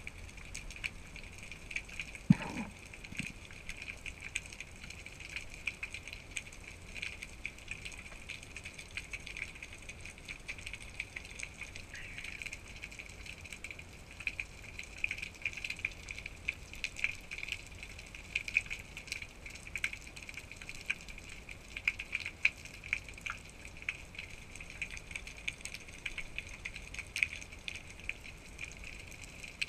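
Underwater ambience picked up by a GoPro in its waterproof housing: a steady hiss with a constant dense crackle of tiny clicks. About two seconds in there is one sharp knock with a short low sweep after it.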